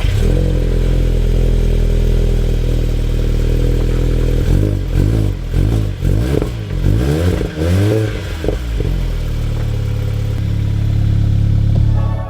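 Mk7 Volkswagen Golf GTI's 2.0-litre turbocharged four-cylinder just after a cold start, running at a steady fast idle, then revved up and down several times around the middle before settling back to a steady idle.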